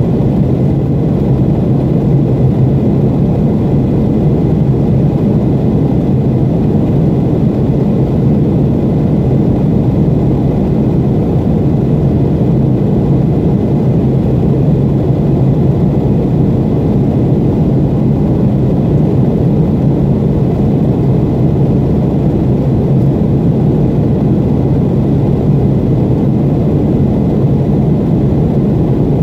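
Steady, loud cabin drone inside a Boeing 757-200 during its climb: the jet engines and the airflow over the fuselage, deep and even, with no change in level.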